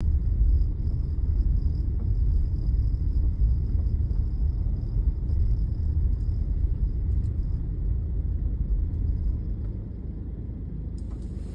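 Suzuki Wagon R Smile mild-hybrid kei car's 660 cc three-cylinder engine and road noise heard from inside the cabin while driving: a steady low rumble that eases off over the last couple of seconds.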